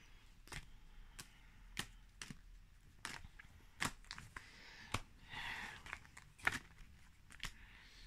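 Tarot cards being gathered up off a cloth: a run of light, irregular clicks and taps as the cards knock together, with a brief rustle of cards sliding about five seconds in.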